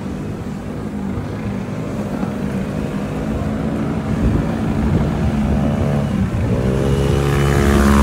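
Small motor scooter engine running close by over a steady low traffic rumble. Its pitch rises and it grows louder in the last couple of seconds as it revs up.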